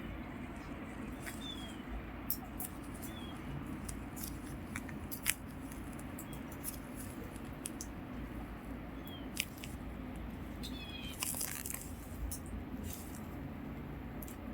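Outdoor ambience during a snowstorm: a steady low background noise with scattered sharp clicks and several short, high chirps that fall in pitch.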